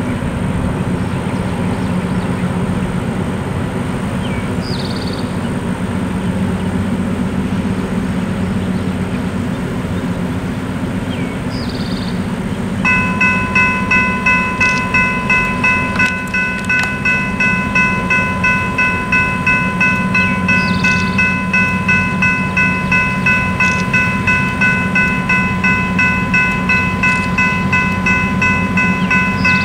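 Railroad level-crossing warning bell starts ringing about 13 seconds in as the crossing activates, then rings steadily at about two strokes a second over a steady low rumble. A few short bird chirps are heard.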